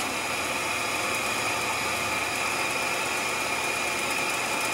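Blower fan of an Incinolet electric incinerating toilet running steadily while the unit's timer cycle is on: an even whir with a constant high whine.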